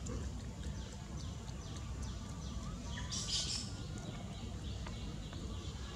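Short, high, falling chirps from animals repeat throughout over a steady low rumble. A brief louder, hissy high sound comes about three seconds in.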